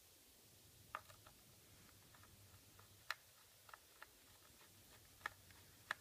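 Light, sharp clicks and ticks from a small screwdriver driving screws back into the plastic bottom panel of a Dell XPS M1210 laptop. They come irregularly, about eight in all, over a near-silent background.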